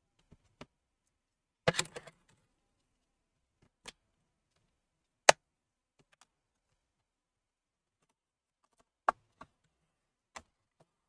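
Sharp clicks and snaps of the Asus Vivobook F512D's bottom cover being pried open with a thin opening tool, its retaining clips popping loose one by one. There is a quick cluster of snaps about two seconds in, one loudest single snap about five seconds in, and a few more clicks near the end.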